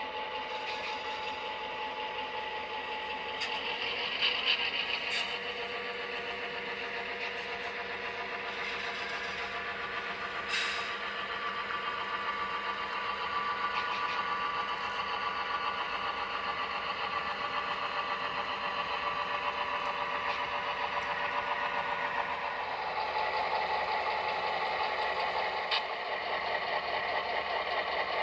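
Model Great Northern F-unit diesel locomotives running with onboard diesel engine sound, a steady engine drone that grows somewhat louder in the last few seconds as the units come close.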